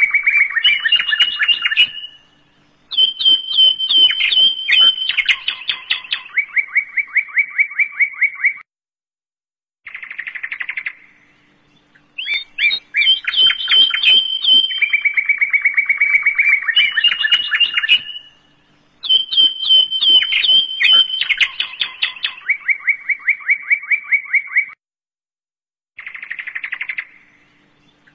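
Birds chirping and trilling in fast, high whistled phrases broken by short pauses. The same sequence repeats about every eight seconds, as a looped recording does.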